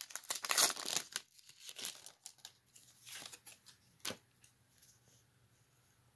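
Foil wrapper of a Pokémon booster pack crinkling and tearing as it is opened, densest in the first second, then a few light rustles and one sharp tick about four seconds in as the cards are taken out.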